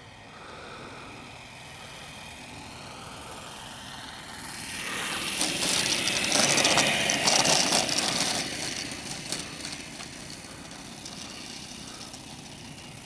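Model plane's ASP 5cc four-stroke nitro engine running at low throttle on landing, its note falling. About five seconds in it grows louder with a rattling rush as the model touches down and rolls over rough grass, then it settles back to the quiet engine for the last few seconds.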